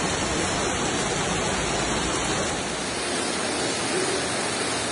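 Floodwater rushing through a street, a steady loud wash of water noise. About two and a half seconds in it shifts to a second stretch of flowing water with less low rumble.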